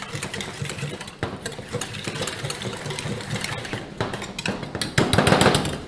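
Wire whisk beating a wet salsa and soy sauce mixture in a small stainless steel bowl: quick, even clinking and scraping of the wires against the metal, louder for a moment near the end.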